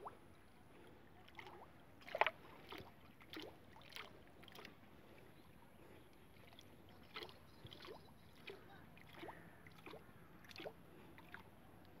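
Faint, irregular small splashes and plops of water as the tip of a bamboo fishing pole is worked in a canal's surface, about a dozen short sounds spread unevenly.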